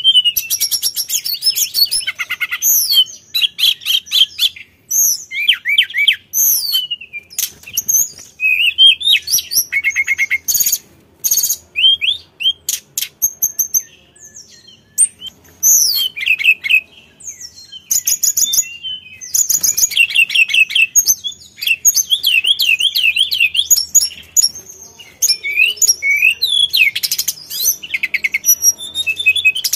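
Hill blue flycatcher (sulingan) singing loudly and without let-up, a long, varied song of clear whistled notes, fast trills and rapid zigzag chattering phrases, with short pauses between phrases.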